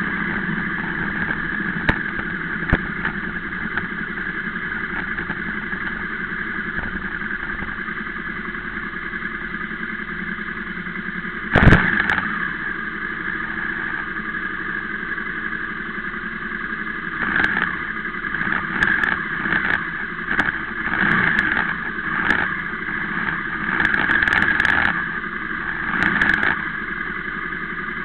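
Motorcycle engine idling steadily while stopped. A single sharp knock comes about twelve seconds in, and near the end the sound swells and drops several times.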